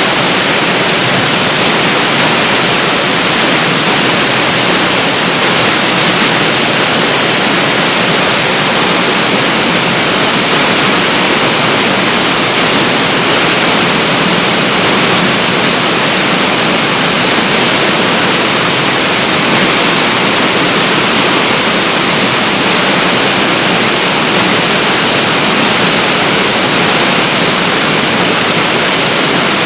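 Artificial waterfall pouring down into its pool: a loud, steady rush of falling water with no change throughout.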